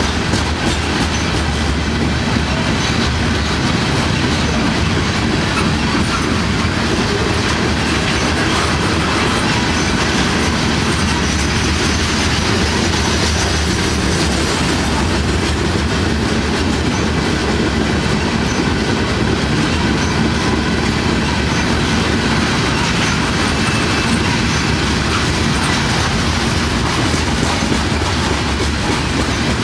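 Freight train of covered hopper cars rolling past close by: a steady, loud rumble of steel wheels on rail, with the clickety-clack of wheels over rail joints.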